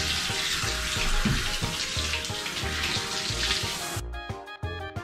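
Handheld shower head spraying water steadily as it is run to check the water temperature, cutting off abruptly about four seconds in. Background music with a steady beat plays throughout.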